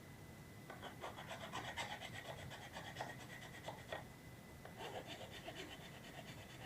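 Sandpaper rubbed back and forth by hand over a 3D-printed plastic part in quick strokes, in two spells with a short pause about four seconds in. A faint steady high tone sounds throughout.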